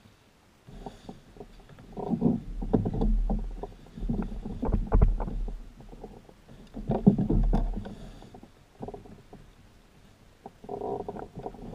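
Low rumbling and irregular knocks on a plastic Hobie kayak hull, with water sloshing, picked up through the boat-mounted camera as the angler shifts while fighting a hooked trout. It starts about a second in and comes in uneven swells.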